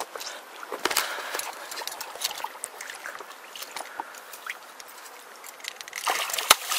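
Shallow river water splashing and sloshing around a hooked catfish as it is grabbed by hand, in scattered splashes with a heavier burst of splashing near the end.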